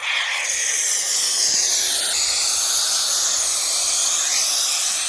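Expanding spray foam being dispensed onto the edge of a SIP panel, a steady hiss of foam and propellant.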